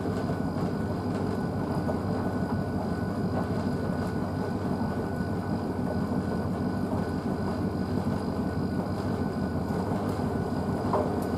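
Blomberg WNF9448 front-loading washing machine in its main wash, the drum turning a wet load of bedding: a steady churning drone with a faint high whine.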